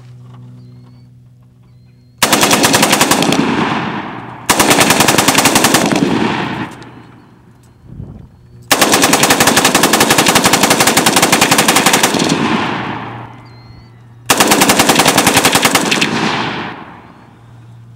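HK21 belt-fed machine gun firing on full auto in four bursts of rapid shots, the third the longest at about three seconds, each burst trailing off in a rolling echo.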